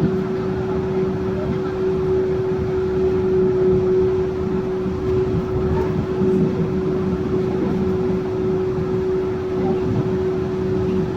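Yurikamome Line rubber-tyred automated train running at steady speed: even rolling noise with a constant, unchanging whine.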